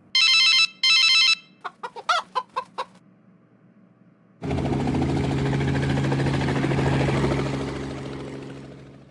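Three sound effects in a row: a telephone ringing in two short bursts, then a hen clucking several times, then a helicopter running steadily and fading out near the end.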